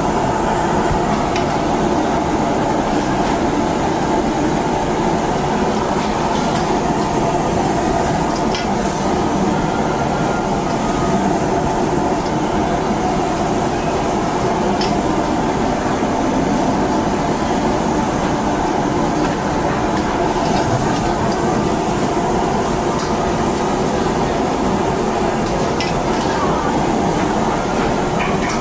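Steady roar of a street-stall wok stove with food frying in the wok, and a few light clinks of a metal utensil against it.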